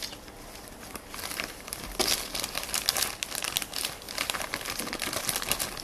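A thin clear plastic bag crinkling as a hand handles it, giving a run of quick crackles that grows busier after about a second.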